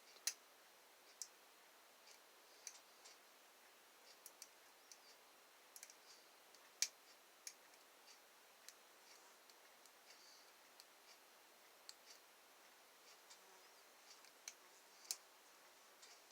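Faint, irregular metallic clicking of a dimple rake being worked in the keyway of a dimple lock, the pins ticking under it, with a few sharper clicks among the soft ones.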